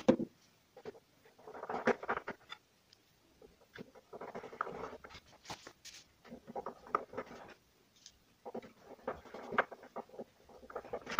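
Hand working at a hard plastic TV part: scratchy scraping and clicking in short bursts, about five of them, each a second or so long with quiet gaps between.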